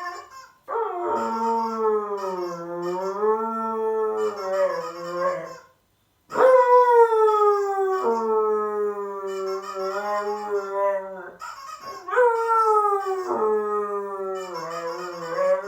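Husky howling: three long howls with short breaks between. The first wavers up and down in pitch, and the next two start high and slide slowly down.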